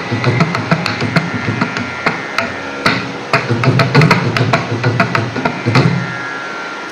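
Mridangam playing a fast, uneven run of strokes, loudest about four seconds in, under a violin holding long notes in a Carnatic kriti. The drumming stops near the end, leaving a held note.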